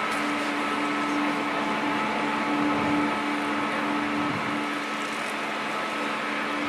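Grabber truck's crane hydraulics running: a steady motor hum with a whine, as the grabber head is worked by remote control.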